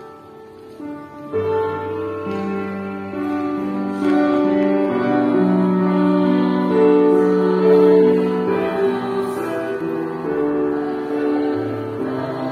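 Slow, gentle music of long held chords, starting softly and growing fuller about a second and a half in.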